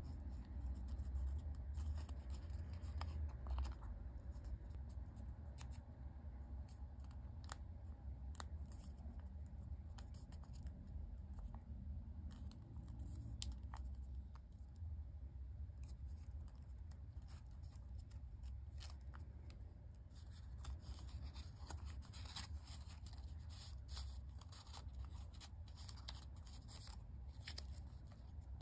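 Quiet crinkling and crisp ticking of folded origami paper being handled and pressed together by fingers. The clicks come more often in the last third, over a low steady rumble.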